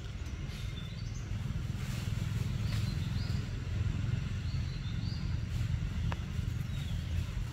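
Outdoor ambience: a steady low rumble, with a few short, faint high chirps scattered through it.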